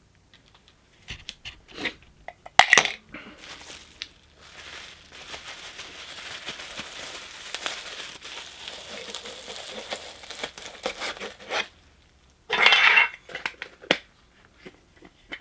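Toy packaging and small figures being handled on a table: scattered knocks and clatter, a loud rustle near three seconds, a long stretch of rustling and crinkling, and another sharp loud rustle near the end.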